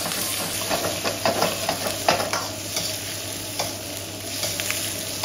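Ginger, garlic, onion and millet chillies sizzling in hot soybean oil while being stirred, with sharp clicks of the spatula against the pan, most of them in the first half.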